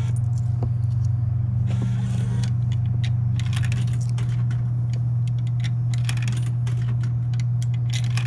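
Steady low electrical hum from a refrigerated drink vending machine. From about three seconds in it carries a run of small clicks and clinks as money is put into the machine.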